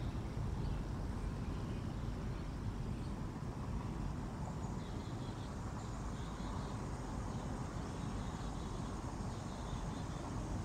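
Steady low outdoor rumble picked up by a nest-camera microphone, with faint high bird chirps scattered over it.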